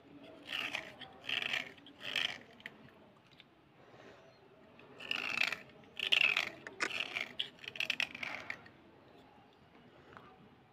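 A thin steel blade scraping along a slate pencil in short strokes, shaving off powder. There are about three strokes, a pause, then a quicker run of about six, and the scraping stops about two seconds before the end.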